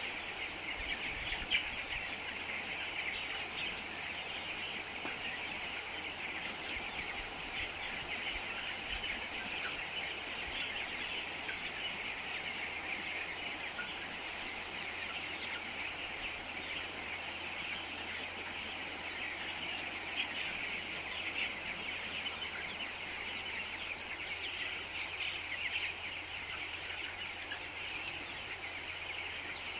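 A large flock of chickens inside a poultry house, a dense, continuous chorus of overlapping chirps and clucks, with a steady low hum underneath.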